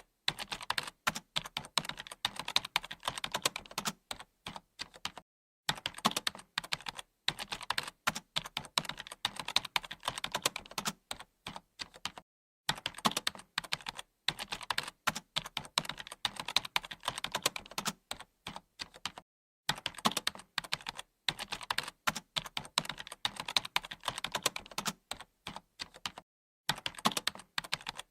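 Computer keyboard being typed on: fast runs of key clicks, broken every few seconds by short pauses.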